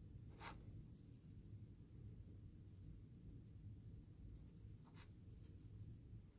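Faint scratchy rubbing of a cotton swab working Brasso over the copper commutator of a Fleischmann model-locomotive motor, scrubbing off embedded black gunk, with a brief sharper scrape about half a second in and another about five seconds in.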